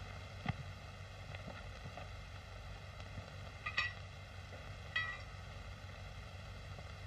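Steady hiss and faint crackle of an old optical film soundtrack, with a few soft clicks and two short high-pitched sounds, one about four seconds in and another about a second later.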